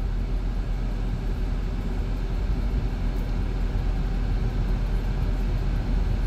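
Steady low rumble inside the cabin of a 2023 Chrysler Pacifica minivan rolling slowly forward.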